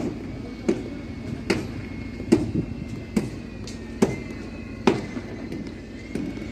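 Hammer blows on a construction site, struck one after another at an even pace of about one every 0.8 seconds, over a steady background rumble.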